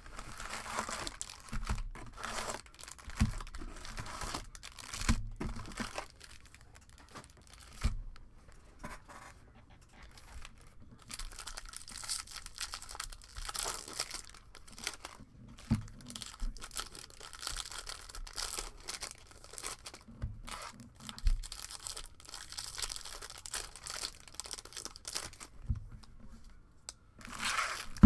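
Trading card packs being torn open and handled: wrappers tearing and crinkling in irregular spells, with occasional light knocks.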